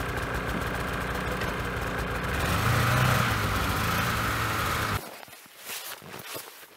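Polaris Titan snowmobile engine running as the sled drives over snow, swelling louder about two and a half seconds in. The engine sound cuts off suddenly about five seconds in, leaving faint clicks and rustles.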